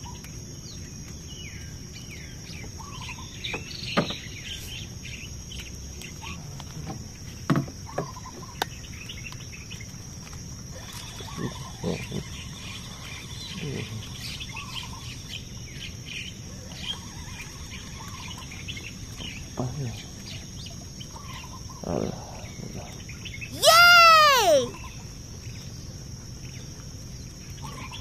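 Riverside insects droning steadily at a high pitch, with scattered bird chirps and a few sharp knocks and taps. About 24 seconds in comes the loudest sound, a single call about a second long that rises and then falls in pitch.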